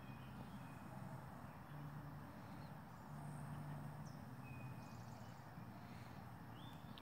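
Faint outdoor ambience: a few short, high bird chirps and whistles over a low steady hum.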